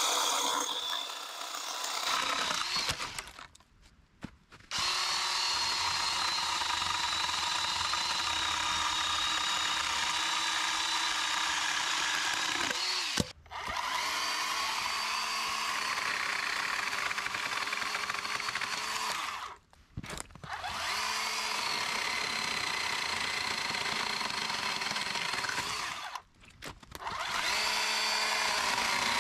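Cordless electric 10-inch chainsaws, first an 18-volt Ryobi and then a 20-volt Amazon-brand saw, running and cutting branches with a steady motor whine. The sound cuts out briefly four times, then the motor spins back up.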